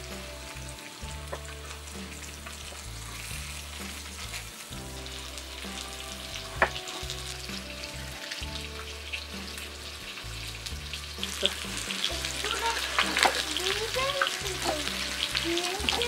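Chicken pieces sizzling as they sear in hot olive oil in a clay tajine, with a spoon stirring and turning them; near the end the spoon scrapes squeakily against the clay and the sound grows louder.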